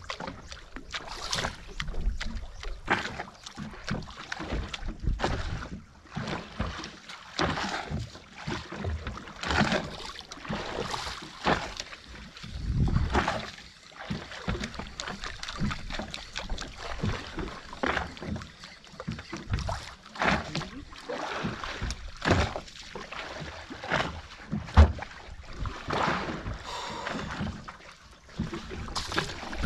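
Wind buffeting the microphone and choppy water slapping and splashing against the hull of a small outrigger boat, in irregular gusts and surges, with one sharp knock against the boat about 25 seconds in.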